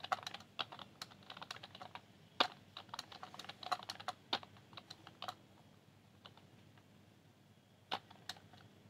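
Computer keyboard being typed on: a quick, irregular run of key presses for about five seconds, then a few single keystrokes near the end.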